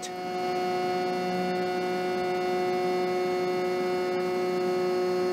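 Inexpensive laser cutter/engraver running with its laser power at zero, the head tracing the outline of the cut faceplate: a steady hum made up of several steady tones.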